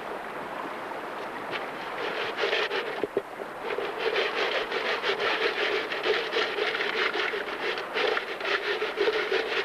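Gravel and small stones rattling and scraping around in a gold pan as it is swirled and dipped in creek water, washing the gravel down. It begins as a steady wash and becomes a busy, irregular rattle about two seconds in.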